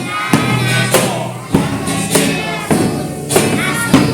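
Children's song performance: voices singing a melody over a steady beat of sharp percussion strikes, about one every 0.6 seconds.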